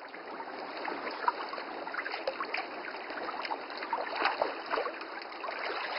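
Running water trickling and splashing: a steady rush dotted with many small drips and gurgles.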